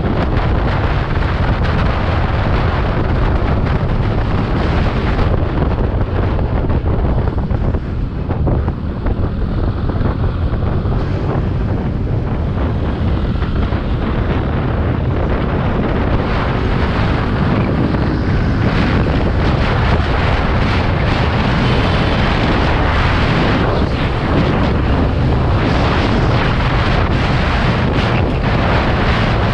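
Loud, steady wind buffeting on the microphone of a scooter ridden at speed, with the road and engine noise underneath.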